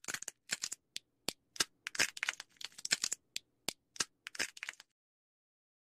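Squirrel cracking and gnawing a nut: an irregular run of dry cracks and crunches in uneven clusters that stops a little before five seconds in.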